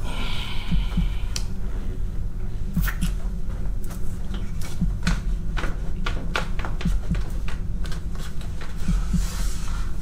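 A low, steady throbbing drone, with scattered short clicks and knocks over it.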